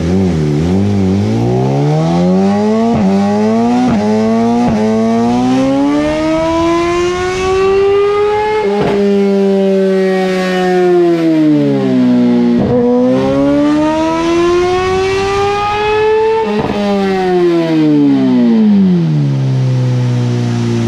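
Suzuki GSX-R1000R's inline-four revving on a chassis dyno through a full titanium M4 exhaust, on the stock ECU map, during a baseline pull. The revs climb through three quick shifts in the first five seconds and peak about nine seconds in. They drop, climb again to a second peak, then fall back to a steady idle near the end.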